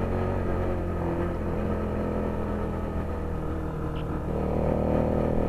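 A motorized bicycle's small engine running steadily while being ridden, picking up a little near the end.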